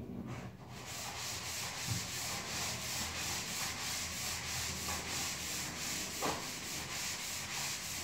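Drywall being sanded by hand, a sanding pad rubbing back and forth over the wall in quick, even strokes of about four a second, starting about a second in.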